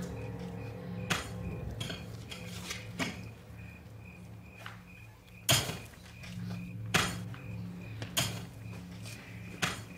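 Sharp metallic knocks and clinks, one every one to two seconds at irregular spacing, the loudest about halfway through. A low pulsing music drone runs underneath.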